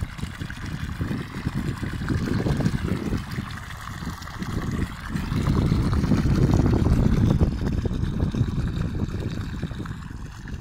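Water gushing from the end of a black irrigation pipe and splashing into a muddy pool, as a steady, rough rush with a low rumble that swells louder in the middle.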